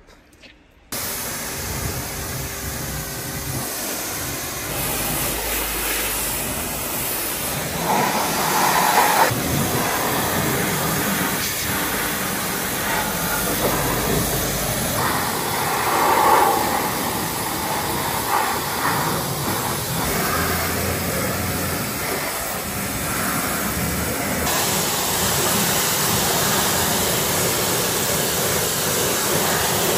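High-pressure washer spraying mud off a truck's underside and drum brakes: a steady hiss of water that starts suddenly about a second in, its tone shifting as the spray moves over different parts.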